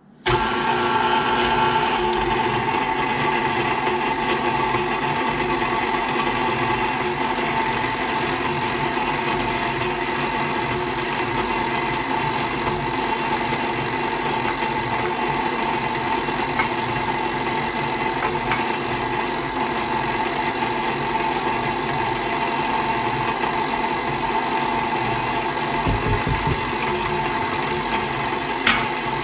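KitchenAid Classic stand mixer switched on at low speed, its motor running steadily with a constant hum while the flat beater turns through batter in the steel bowl. It starts suddenly just after the beginning.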